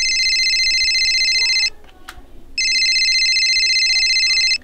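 Electronic telephone ring, a fast trill in two bursts of about two seconds with a pause of about a second between them, and a short click in the pause.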